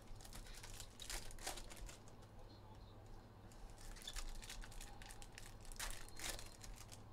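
Faint crinkling and rustling of foil trading-card pack wrappers being handled, in short scattered bursts, the clearest about a second in and again near six seconds.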